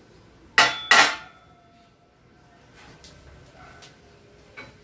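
Lengths of square steel tubing clanking against each other and the metal table as they are laid out: two sharp metallic clanks about half a second in, the second with a short ring, then a few lighter knocks.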